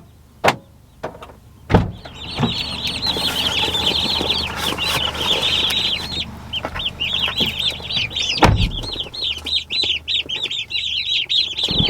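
A crowd of young turkey poults peeping loudly and constantly in a dense chorus of high, arching chirps, starting about two seconds in after a few knocks, with another knock partway through.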